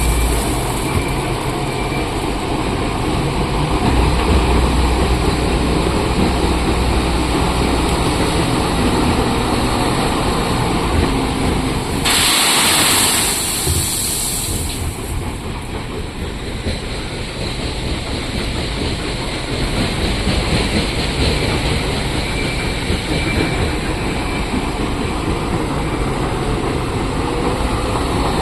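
Heavy diesel machinery running steadily, with a loud burst of hiss about twelve seconds in that lasts two or three seconds.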